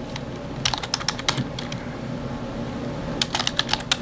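Typing on a computer keyboard: a quick run of keystrokes about half a second in, a pause, then another run near the end.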